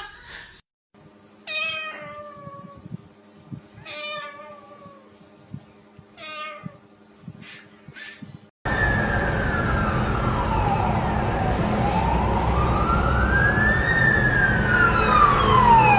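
A cat meows three times, each call falling in pitch. A little past halfway there is a sudden cut to loud noise with a wailing siren sweeping up and down in pitch.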